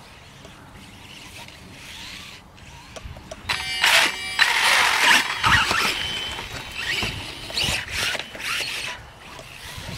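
Losi 1/4-scale electric RC motorcycle's brushless motor whining high for about a second, starting around three and a half seconds in. Loud surges of noise follow as it runs over rough grass and dirt, with several shorter throttle bursts toward the end.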